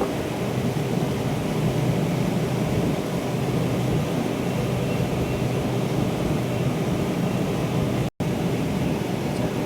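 Steady machine drone with a low hum, cut by a brief dropout about eight seconds in.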